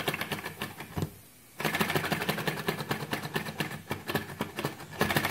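Flame-licker model engine running fast, a rapid, even mechanical clatter. It drops away for about half a second about a second in, then carries on louder.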